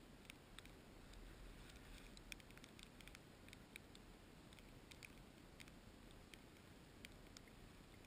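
Near silence, with a scattering of faint, irregular small ticks.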